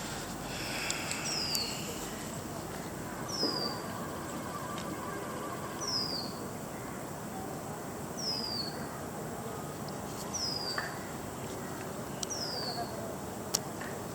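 A bird repeating a short, high, falling call about every two seconds, over steady outdoor background noise with a few faint clicks.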